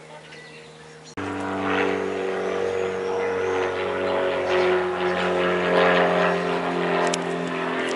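Light propeller aircraft's piston engine flying overhead, a steady drone with several pitched engine tones. The sound jumps abruptly louder about a second in.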